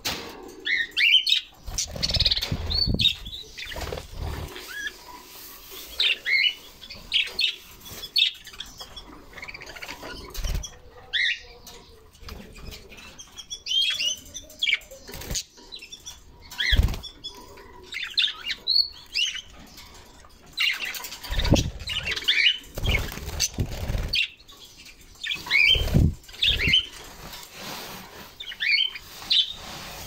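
Pet budgies chirping in quick, repeated bursts, with a few dull thumps and wing flaps among the calls as birds move about and land.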